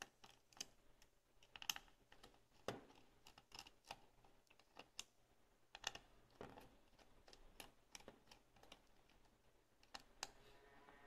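Faint, irregular small clicks and ticks of a small Phillips screwdriver working tiny stainless-steel screws out of a Ricoh GR Digital III's mounting bracket.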